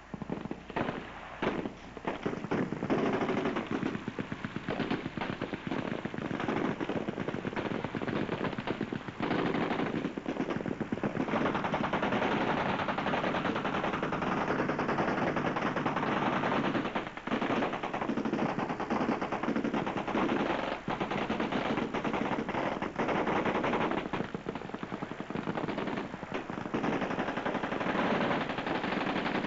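Several machine guns firing together in long, overlapping automatic bursts, an almost unbroken rattle of shots with a few short lulls.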